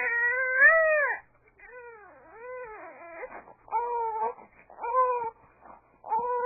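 Baby crying: one long wail that breaks off about a second in, followed by a string of shorter, quieter cries that rise and fall, with brief pauses between them.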